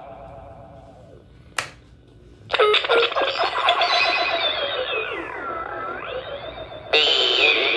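Circuit-bent 1978 Texas Instruments Speak & Spell making glitchy, distorted synthetic speech through its added delay. An echo tail fades out at first, then comes a single click. From about two and a half seconds in, a loud stuttering digital voice plays, its pitch sliding down and back up again, and a fresh loud burst cuts in near the end.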